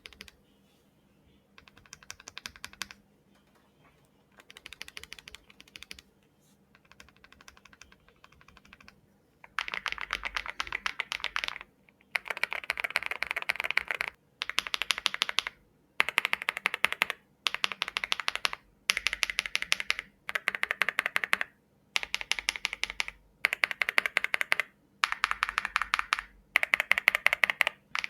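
Typing on a Zoom75 mechanical keyboard with WS Morandi and KTT Hyacinth linear switches, in bursts of rapid keystrokes with short pauses between them. The bursts are fainter for the first nine seconds or so, then much louder from about ten seconds in.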